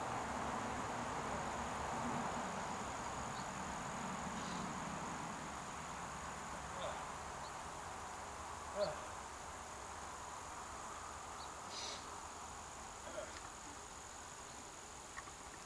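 Steady, high-pitched insect trilling over a soft hiss that slowly fades, with a few faint knocks, the sharpest about nine seconds in.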